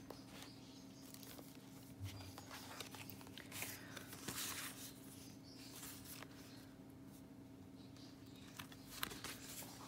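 Faint rustling of paper and card as the pages of a handmade junk journal are turned and its tags handled, in soft scattered bursts over a low steady hum.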